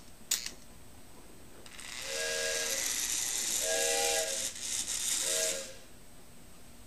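Steam-locomotive whistle sound effect: three toots, the middle one the longest, over a steady steam hiss that starts about two seconds in and stops near six.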